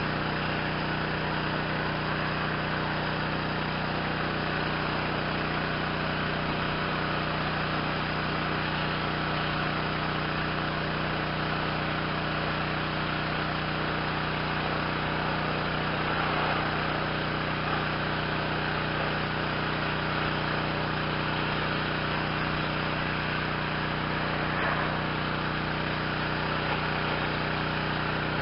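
Yamaha PW 4040 pressure washer's 357 cc Yamaha MZ360 single-cylinder gasoline engine running at a steady speed.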